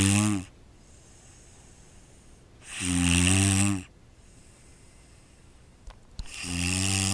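A person snoring heavily: a long, rasping snore on each in-breath, about every three seconds. One fades just after the start, one comes about three seconds in and a third begins near the end, with quiet breathing between.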